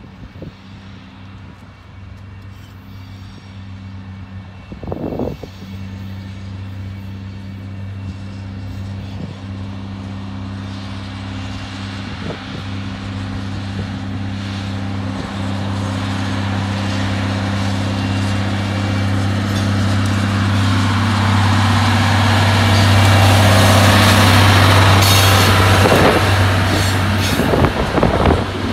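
Rail ballast cleaner's diesel engines running with a steady low drone that grows louder as the machine approaches. Near the end, rattling and clicking of its wheels and cars on the rails take over as it passes close by.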